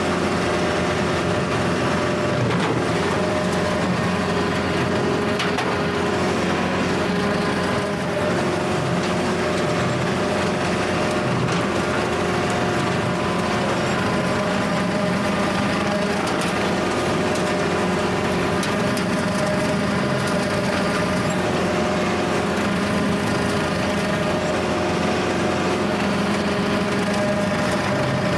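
Kubota L4701 tractor's diesel engine running steadily, driving a Countyline brush hog (rotary cutter) through tall grass.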